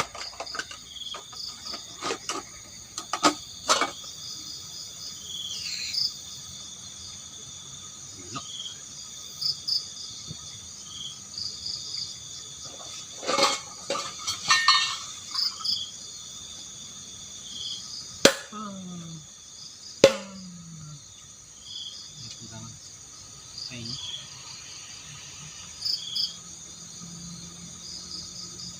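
Steady chorus of crickets and other insects with regular repeating chirps, broken by scattered knocks and clatters of gear being handled. The loudest are two sharp knocks about two seconds apart in the second half, each trailing off in a short falling tone.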